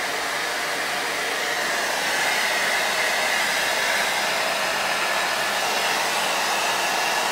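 Handheld hair dryer running with a steady rush of air and a faint whine, a little louder from about two seconds in.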